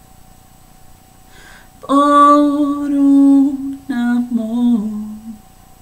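A woman singing unaccompanied: about two seconds in she holds one long steady note, then after a short break sings a few shorter notes stepping down in pitch.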